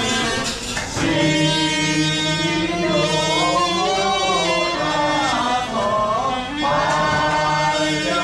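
Music: a slow melody with singing voices and notes that glide up and down.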